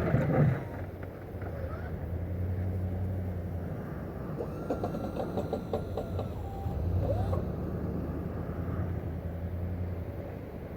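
A motor running steadily with a low hum. About halfway through, a faint high tone and light ticking come in briefly.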